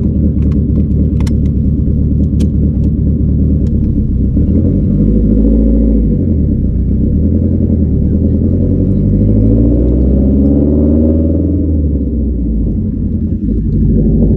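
Nissan S14 240SX's engine heard from inside the cabin: running steadily with a few light clicks, then revving up as the car pulls away. The revs drop at a gear change about six seconds in, climb again, and fall back near the end.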